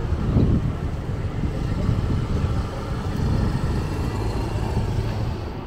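Street traffic with a motor scooter passing close by, over a steady low rumble of vehicles.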